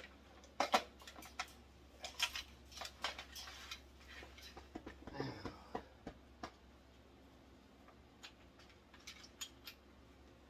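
Irregular light clicks and rattles of drill bits being handled in a plastic drill-bit case. They come thickly for about the first six seconds, then only now and then.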